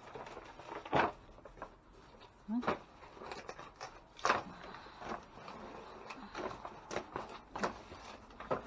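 Plastic trash bags and cardboard crinkling and rustling as a dumpster's contents are shifted by hand, with a few sharp knocks scattered through.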